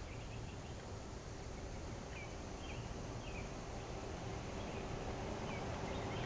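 Outdoor background: a steady low rumble with faint, scattered bird chirps every second or so.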